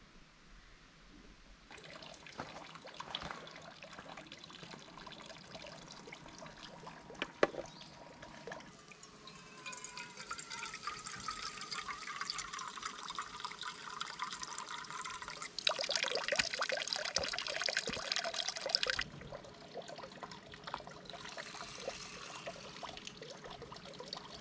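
Spring water running from a wooden spout into a stone basin and splashing into a small metal cup held under the stream, the tone of the splashing shifting as the cup fills. It gets louder for a few seconds past the middle.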